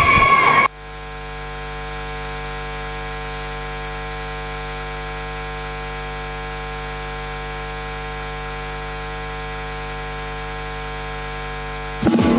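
Steady electrical mains hum, a low buzz with many overtones and a thin high whine above it. It starts suddenly just under a second in, and music cuts in near the end.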